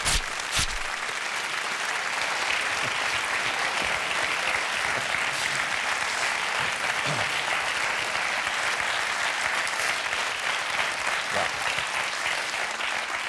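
Studio audience applauding steadily throughout, with two sharp knocks about half a second apart at the start.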